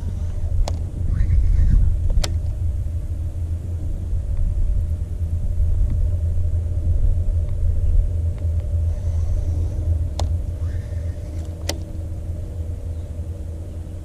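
Wind buffeting a head-mounted camera's microphone, a heavy uneven rumble, over a faint steady hum, with four sharp clicks spread through it.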